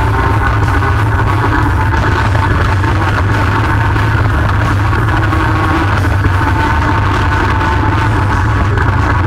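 Loud, steady rock music.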